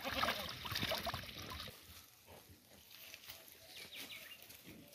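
Water running from a fountain pipe and splashing over hands into a trough, ending about two seconds in. After that, a faint outdoor background with a few short high chirps.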